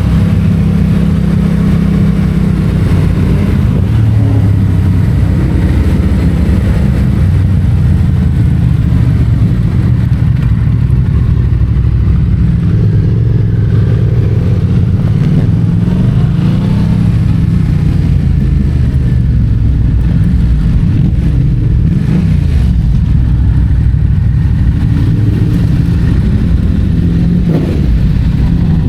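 Yamaha MT-07's parallel-twin engine breathing through an Akrapovic titanium exhaust, running loud under way. The revs rise and fall as the bike speeds up and slows.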